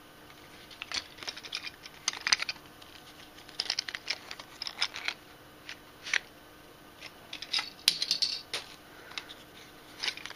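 Small white cardboard boxes being picked up and handled: irregular light clicks, taps and scrapes of paperboard, coming in clusters after about a second.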